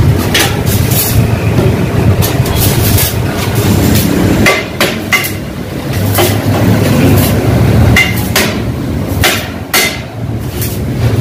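Irregular metal clanks and hammer strikes on a stainless steel tandoor body, about one every second or less, over a steady low rumble.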